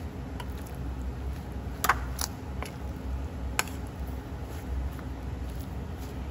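A fork stirring raw pork pieces through cornstarch in a stainless steel bowl: soft squishing, with a few sharp clinks of the fork against the bowl, the loudest about two seconds in. A steady low hum runs underneath.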